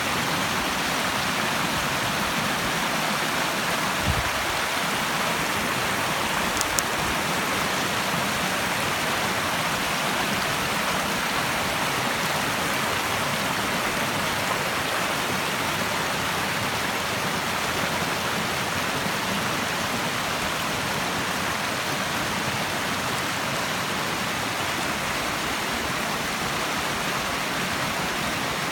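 Water rushing steadily, like a stream running over rocks, as an even unbroken hiss. A soft low thump about four seconds in.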